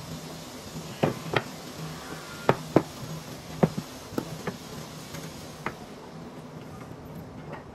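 Wooden legs and rails of a folding table frame knocking and clacking against each other and the workbench as the frame is swung and folded flat. About eight sharp knocks come in the first six seconds, over a steady low hum.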